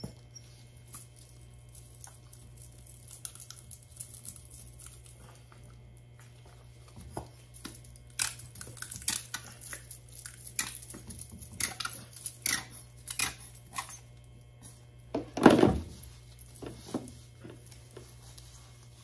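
Rubber-gloved hands working hair dye from a squeeze applicator bottle through wet hair in a salon shampoo bowl: small squishing, crinkling clicks, sparse at first and busy in the second half. One louder knock comes about three-quarters of the way through, over a low steady hum.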